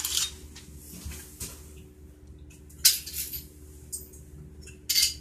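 CZ75 pistol being field-stripped by hand: a scattering of sharp metallic clicks and clacks as the slide and barrel are worked apart, the loudest about three seconds in and near the end.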